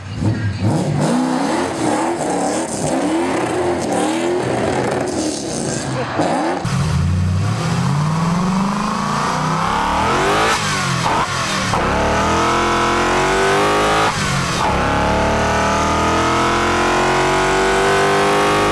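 Toyota 1UZ-FE V8 engines, first revved in quick blips, then one fitted with individual throttle bodies accelerating hard through the gears. Its pitch climbs steadily and falls sharply at each upshift.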